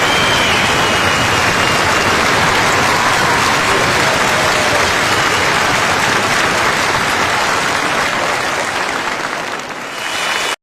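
Crowd applause: dense, steady clapping with a few faint high whistles. It dips briefly near the end, then cuts off suddenly.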